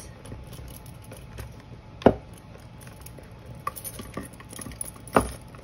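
Keys on a carabiner being handled and clipped onto a bag's strap: small clinks and ticks, with two sharp knocks, one about two seconds in and one near the end.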